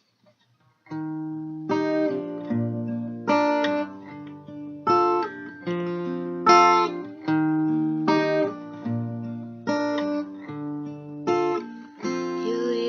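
Acoustic guitar playing a song intro alone, starting about a second in. Chords are plucked and strummed in a steady, unhurried rhythm, each one ringing on until the next.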